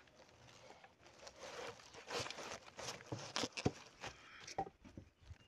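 Green bamboo pole being handled and shifted over dry grass: irregular scraping and rustling with a few light knocks.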